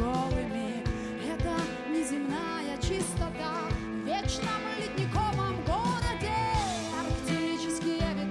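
Background song with a sung vocal melody over guitar and a steady drum beat.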